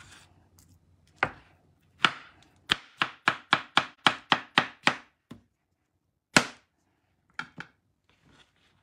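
Chef's knife chopping a peeled cantaloupe slice into chunks, the blade knocking on a bamboo cutting board. Two single strokes come first, then a quick run of about ten chops at roughly four a second, then a few spaced-out strokes near the end.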